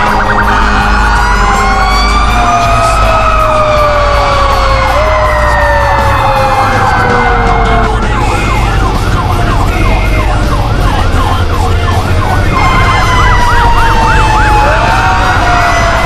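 Fire truck sirens sounding while responding: a wail that rises and then slowly falls in pitch, with a fast yelp siren cutting in about halfway through and again near the end.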